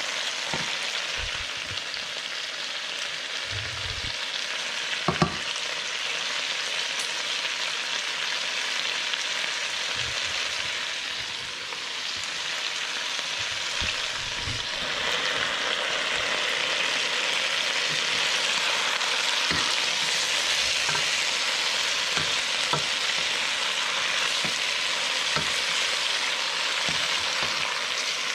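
Chicken pieces sizzling as they fry in a pan, stirred with a spatula that knocks and scrapes against the pan now and then. The sizzle grows louder about halfway through.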